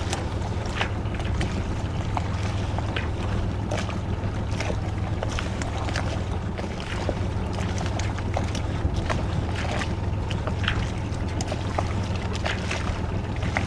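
Small fishing boat's motor giving a steady low hum, with wind on the microphone and scattered light ticks.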